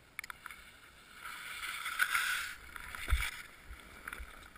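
Skis sliding through soft, loose snow: a hiss that swells and fades around the middle, with scattered clicks and a low thump about three seconds in.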